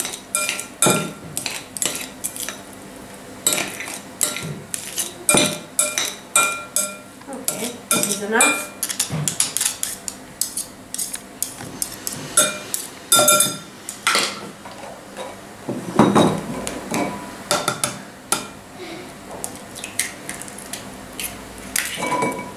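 Metal cutlery clinking and scraping against a glass mixing bowl as cooked spaghetti is chopped inside it: a rapid, uneven run of clicks, many with a brief ring from the glass.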